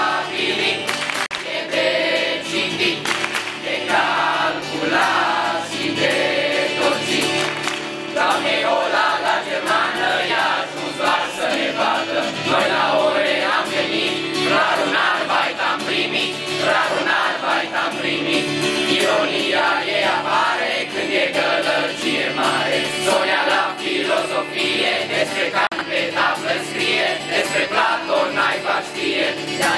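A group of young men and women singing together in chorus, accompanied by an acoustic guitar.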